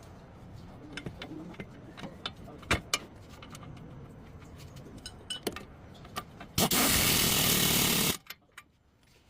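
Metal tools clicking and knocking in scattered single strikes, then a loud, steady rushing burst lasting about a second and a half about two-thirds of the way in, which cuts off suddenly.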